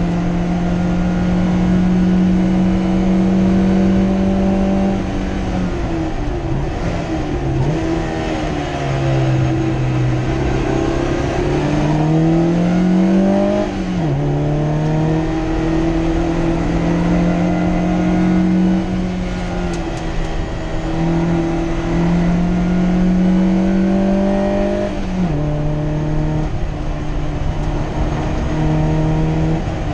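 Race car engine heard from inside the cockpit, running hard on track. Its pitch climbs steadily and drops sharply at gear changes about 14 and 25 seconds in, with the revs falling and building again from about 6 to 13 seconds in.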